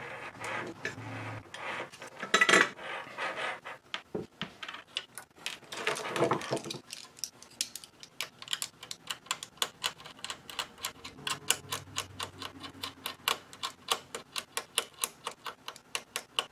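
A small metal tool scraping at a tiny LED leg and its solder pad on a circuit board, cleaning it back to fresh metal for soldering: irregular scratchy scrapes with two louder strokes at first, then a steady run of sharp scratching ticks about four or five a second.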